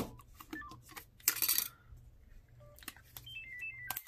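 Motorola RAZR flip phone being handled: keypad clicks and a few short electronic beeps, with a brief plastic-and-metal scrape about a second in. Near the end the phone plays a short run of beeps stepping down in pitch.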